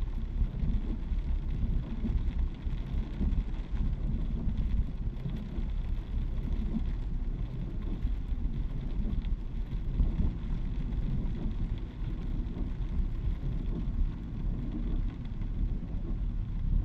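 Steady low rumble inside a car's cabin while driving on a rain-soaked road in a heavy downpour: tyre and road noise on the wet tarmac.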